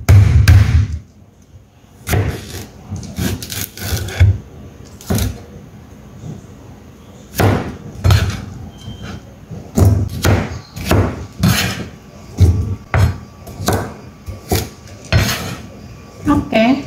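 Cucumber being smashed and then chopped with a cleaver on a plastic cutting board: a few heavy thumps at the start, then after a short pause, irregular knocks of the blade coming down through the cucumber onto the board.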